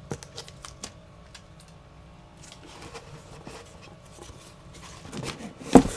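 A small cardboard box handled and opened with gloved hands: faint scattered clicks and rustles, then one sharp knock near the end.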